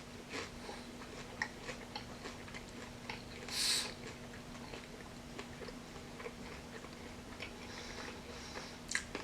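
Close-up chewing of plant-based chicken pieces: small irregular mouth clicks and a short hiss about three and a half seconds in, over a faint steady hum.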